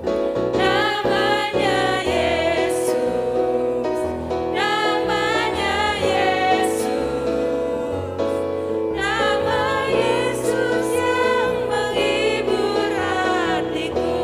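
Christian worship song: voices singing in phrases over steady instrumental backing.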